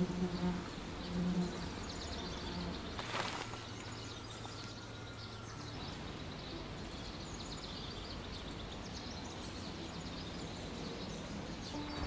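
A flying insect such as a fly or bee buzzing in short passes in the first few seconds, over forest ambience with faint high bird chirps. A short sharp noise comes about three seconds in.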